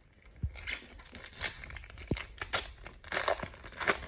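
Foil wrapper of a trading card pack crinkling in irregular crackles as it is torn open and pulled apart.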